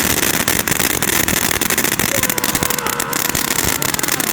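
Winda Light House firework fountain spraying with a steady loud hiss and dense crackling throughout.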